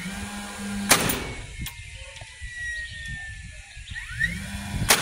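DeWalt cordless nailer driving two nails into wooden eave boards, one about a second in and one near the end. Before each shot its motor whines up in pitch and hums briefly. After the first shot the whine slowly winds down.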